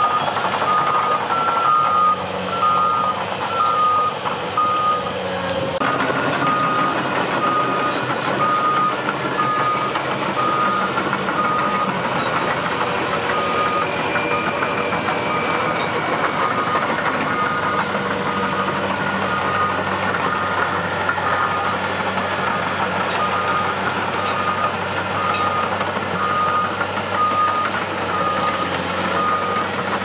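Backup alarm on heavy pipeline construction equipment beeping steadily, a little faster than once a second, over the continuous diesel engine noise of the working machinery. A second, slightly higher backup alarm beeps alongside it for a few seconds near the start.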